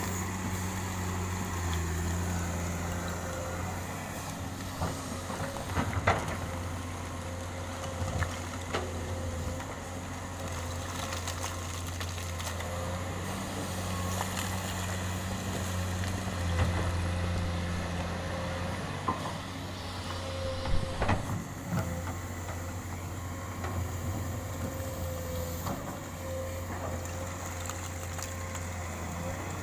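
Komatsu PC200-8 excavator's six-cylinder diesel engine running steadily with a low drone, with a few sharp knocks here and there.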